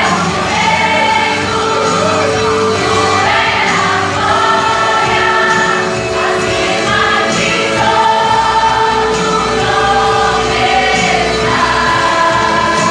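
Choir singing a Portuguese-language worship song over instrumental accompaniment, with several voices holding and moving between sustained notes.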